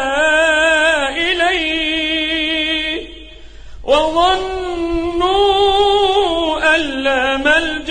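A male reciter chanting the Quran in melodic tajweed style. He draws out long vowels with wavering, ornamented pitch, pauses for breath for about a second roughly three seconds in, then starts the next phrase on a rising note.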